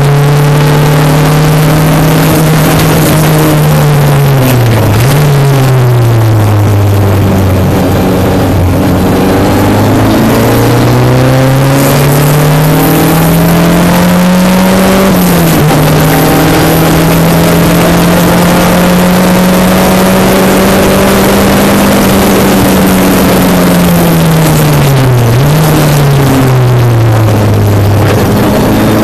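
Single-seater race car engine heard onboard at high revs, its note held, then dropping with a quick rev blip about five seconds in, climbing back up under acceleration, and blipping and dropping again near the end as the car brakes and downshifts. A heavy rush of wind and noise runs under the engine throughout.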